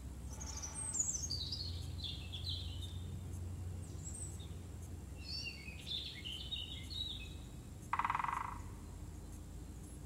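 A woodpecker's drum roll on wood about eight seconds in: a rapid burst of strikes lasting about half a second, the loudest sound, with a fainter roll near the start. Small songbirds sing two short phrases of quick notes falling in pitch.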